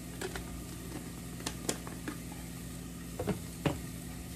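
Grated onion sizzling softly in olive oil in a pot, with several light clicks and taps of glass as a spice jar of red pepper flakes is shaken and put down and an olive-oil bottle is picked up.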